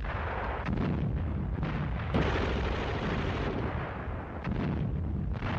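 Battle sounds: artillery fire and explosions over a continuous low rumble, with several sharp blasts cutting in, the loudest about two seconds in.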